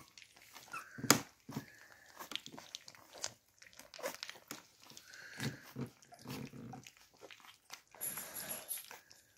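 Several beagle puppies lapping and smacking at wet puppy mash in a stainless-steel saucer bowl: a steady patter of irregular wet clicks and slurps, with one sharper click about a second in.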